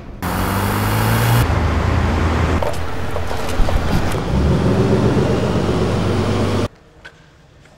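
City road traffic: car engine and tyre noise passing close, then buses and cars going by on a street. The sound shifts suddenly about a second and a half in and cuts off abruptly about a second before the end.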